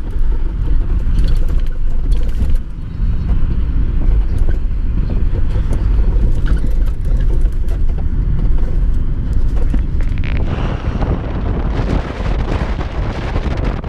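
Taxi driving through city streets, heard from inside the cabin as a steady low road and engine rumble. From about ten seconds in, a rush of wind noise grows louder as the microphone moves out of the window into the airstream.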